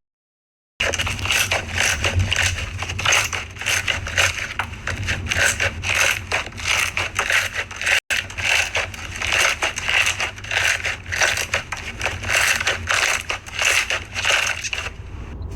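Crunchy slime being squeezed and pressed by hand, giving a dense, irregular run of crackling crunches. It starts after a short silence, cuts out for an instant about halfway, and eases off near the end.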